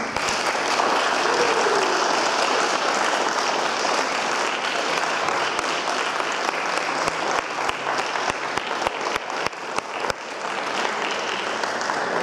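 Audience applauding, breaking out suddenly at the end of the piece. Partway through the clapping thins so single claps stand out, then fills in again.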